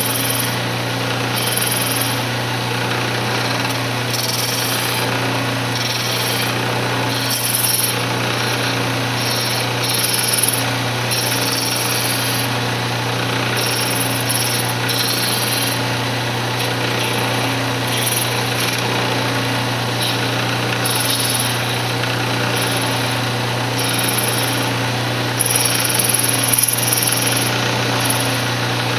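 Wood lathe running steadily while a turning tool cuts down a cocobolo ring blank on a pin chuck, reducing its thickness. A hissing cutting sound comes and goes over the steady motor hum as the tool is worked in repeated passes.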